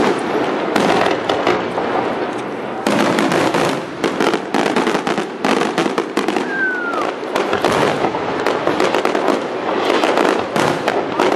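Fireworks display: a dense, continuous run of aerial shell bursts, one bang after another.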